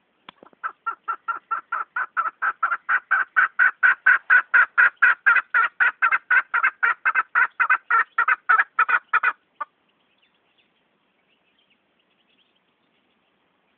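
Chukar partridge calling: a long run of rapid, evenly spaced chuck notes, about four a second, growing louder over the first few seconds and then stopping abruptly about nine and a half seconds in.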